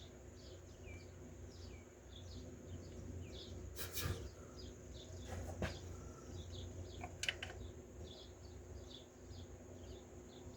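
Small birds chirping over and over in the background, along with a steady high-pitched hum. A few sharp clicks come in the middle.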